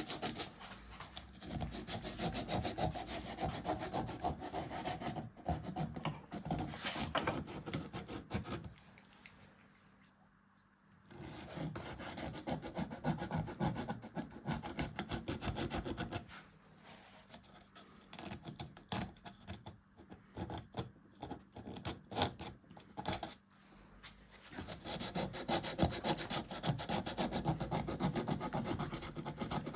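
Hand tool scraping and carving beech wood in quick, repeated strokes. The strokes stop briefly about ten seconds in and are sparser in the middle of the stretch.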